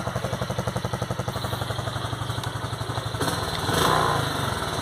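Honda Biz single-cylinder four-stroke engine idling steadily at an even beat while running on gasoline mixed with a little diesel. A brief rush of noise comes about three and a half seconds in.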